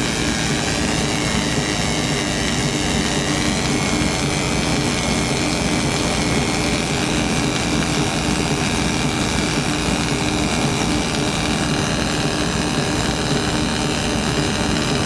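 Laser marking machine running as it etches a pattern into a round iron block: a steady mechanical drone with a constant low hum and faint high whines that shift slowly in pitch.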